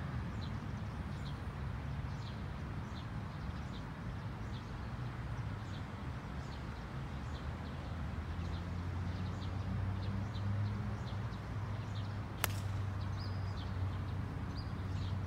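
A golf club strikes the ball once, a single sharp click about twelve seconds in. Under it, a steady low wind rumble and birds chirping.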